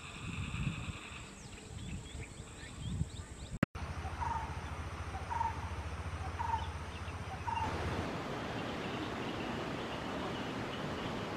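Outdoor field ambience: a bird calls four short notes about a second apart over a background hiss. The hiss grows louder and steadier in the second half.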